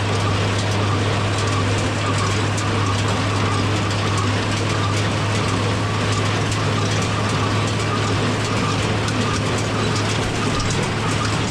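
International 1066 tractor's turbo-diesel engine running steadily under load while a New Holland Hayliner small square baler works behind it, its mechanism clattering with many rapid clicks.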